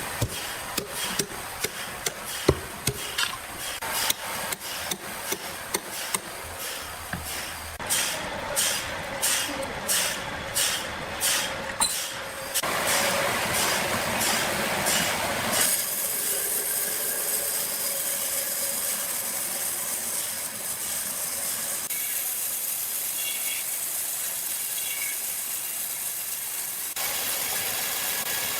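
Sawmill work noise: a string of sharp knocks on wood, about two a second for a stretch, then a few seconds of harsh sawing, then a steady high-pitched machine hiss.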